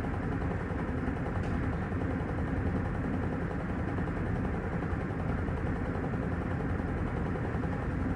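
Panasonic washing machine running mid-cycle: a steady low churning of motor and water with no breaks.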